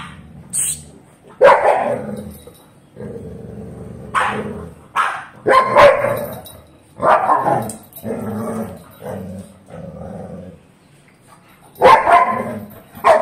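A French bulldog puppy and a Staffordshire bull terrier play-fighting: a run of sharp barks, about half a dozen, with low growling between them, the noise of teasing play over a toy rather than a real fight.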